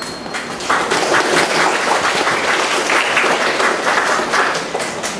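Audience applauding. The clapping swells about a second in and dies away near the end.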